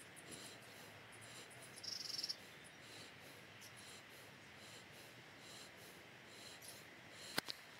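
Quiet outdoor background with faint high chirps repeating throughout, a brief louder high chirp about two seconds in, and a sharp click near the end.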